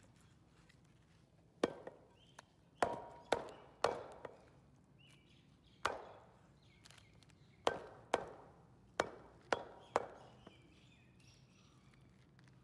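Butcher's cleaver chopping goat meat on a round wooden log block: about a dozen sharp chops at an irregular pace, some in quick pairs, each blade landing with a short thud into the wood.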